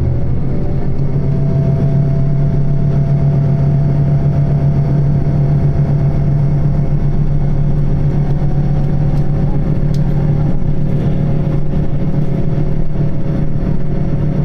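Diesel limited-express railcar accelerating away from a station under power, heard from inside the passenger cabin. Its engine drone steps up in pitch at the start and then holds steady over the running noise of the train.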